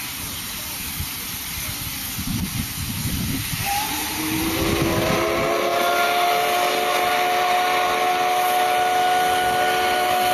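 Steam locomotive letting off a hiss of steam, then about four seconds in sounding its steam whistle in one long blast of several notes together. The blast slides up briefly as it starts, holds steady, and stops near the end.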